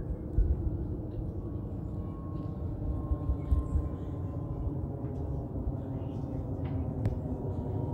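Jet noise from a Boeing 777-300ER's GE90-115B engines passing overhead: a steady low noise with a faint whine slowly falling in pitch as the aircraft moves away.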